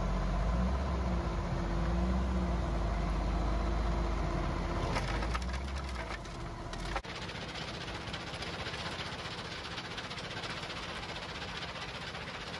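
Heavy diesel machinery running with a steady low drone as a wheel loader tips broken brick into a feeder hopper, the rubble rattling in about five seconds in. About seven seconds in the sound cuts to a dense, continuous clatter of brick and concrete rubble tumbling off a conveyor belt.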